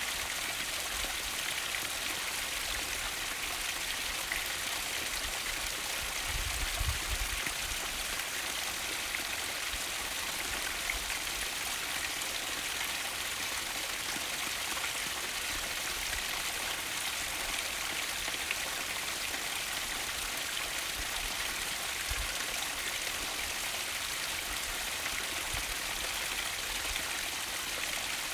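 Mountain stream flowing steadily, an even rushing hiss of water. About seven seconds in there is a brief low rumble.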